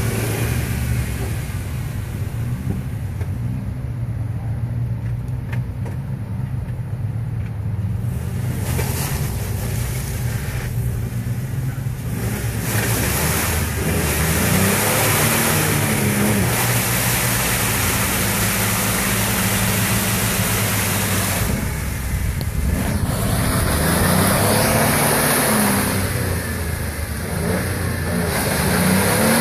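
Jeep Wrangler two-door engine revving as it works through deep mud, its pitch rising and falling over and over, over a constant rushing noise.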